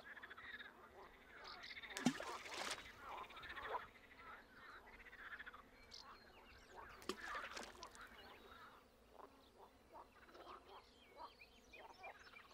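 Two objects, most likely stones, plop into the lake, about two seconds in and again about seven seconds in. Scattered short animal calls sound faintly around them.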